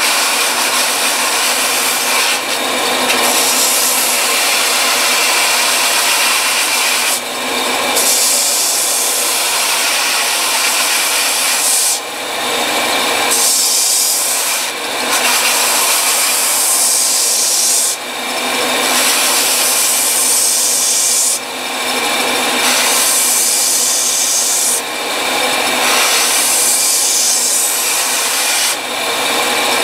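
Upright belt sander running, with the butt end and rubber recoil pad of a wooden rifle stock pressed against the moving abrasive belt: a steady, loud grinding hiss as pad and wood are sanded to shape. The hiss drops briefly every few seconds as the work is lifted and repositioned on the belt.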